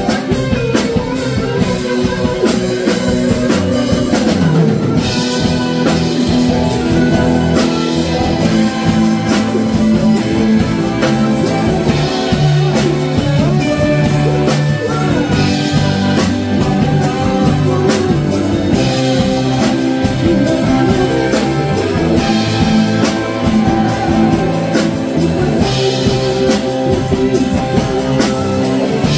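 A rock band playing: guitar over a steady drum kit beat.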